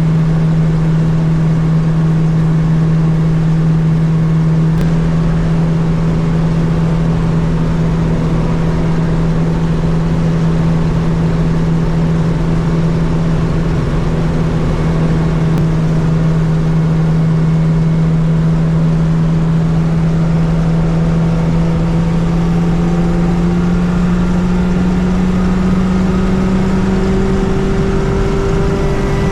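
Fiat 600 with a swapped-in 1.6-litre Fiat 128-family engine running at a steady highway cruise, a constant engine drone. Its pitch slowly rises over the last several seconds as the revs build.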